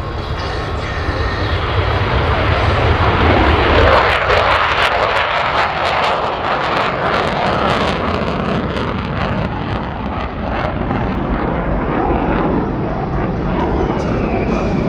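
A USAF F-35A's single Pratt & Whitney F135 afterburning turbofan jet engine at take-off power as the jet climbs out. The roar builds over the first few seconds and then carries a rapid crackle for several seconds.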